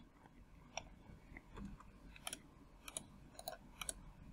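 Several faint, irregularly spaced clicks of a computer mouse.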